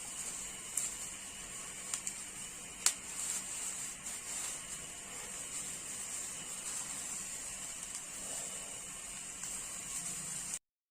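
Coconuts roasting over a fire: a steady hiss with a few sharp pops, which cuts off suddenly near the end.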